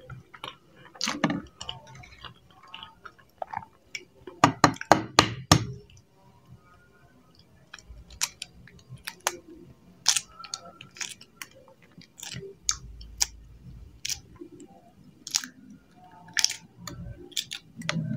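Shell of a boiled free-range chicken egg being cracked and peeled by hand over a metal pot: scattered sharp clicks and crackles as pieces come away, with a quick run of louder knocks about five seconds in.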